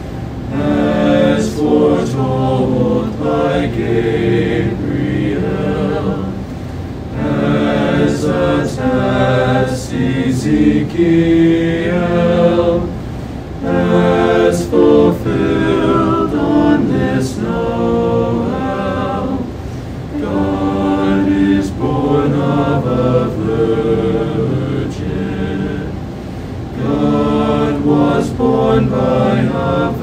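Small men's vocal ensemble of five teenage boys singing unaccompanied in harmony, in sustained phrases of several seconds with short breaks between them.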